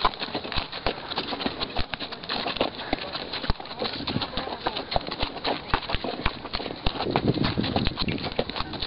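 Horses' hooves clip-clopping at a walk over stony desert ground, an uneven run of sharp clicks and knocks.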